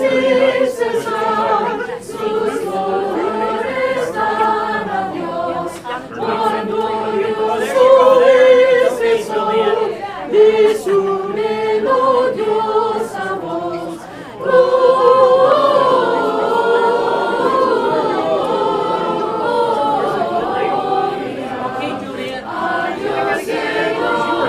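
A choir of many voices singing together in harmony.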